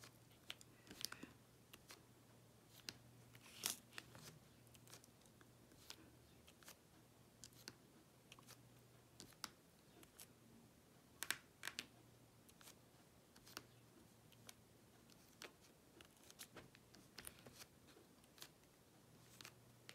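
Faint, irregular clicks and taps of a diamond painting pen picking up resin drills from a plastic tray and pressing them onto the sticky canvas, some louder than others.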